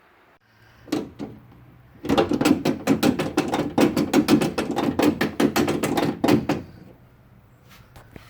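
Datsun 1200 door window regulator being worked, giving a rapid, even clicking of about six a second for some four seconds over a low hum. This is the kind of skipping that the owner puts down to damaged teeth on the regulator.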